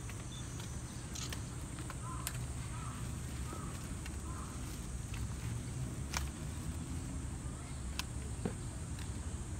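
Outdoor ambience: a steady low rumble with a constant high hiss over it, and a few scattered light clicks.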